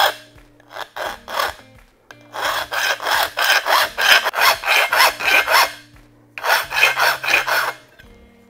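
Hand file rasping across the end of a 4130 chromoly steel seat tube, notching it by hand to fit. Quick, even strokes about three a second, with a short pause about six seconds in, stopping near the end.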